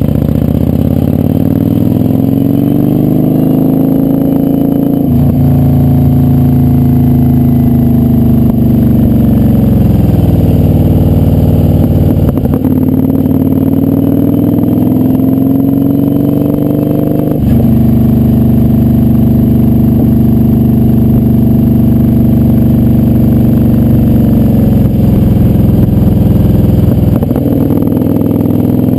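Kawasaki Vulcan 900's V-twin engine running under way, its pitch rising and falling with the throttle through the curves, with brief breaks about four times that fit gear changes.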